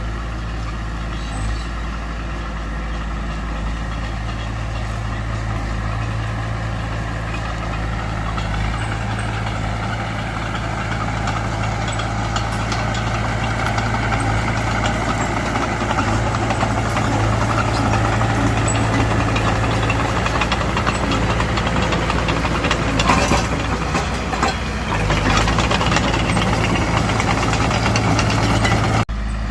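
Diesel engine of a Mitsubishi BD2F bulldozer running steadily, then working harder and louder from about a third of the way in as it pushes soil. A few metallic clanks come about three-quarters of the way through.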